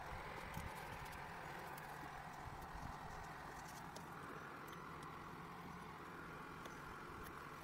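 Faint scattered light clicks and taps of grey plastic grab-handle trim pieces being handled and pressed into the pillar, over a steady background hiss.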